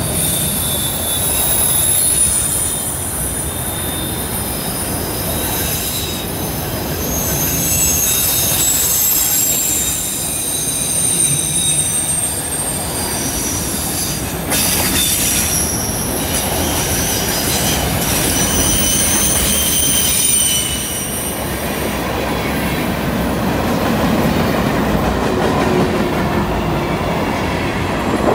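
Freight cars of a long train rolling past on a curve, a steady rumble of wheels on rail. Over it are high, shifting squeals that come and go: wheel flanges grinding against the rail through the curve. The squeal weakens and the rumble grows in the last several seconds.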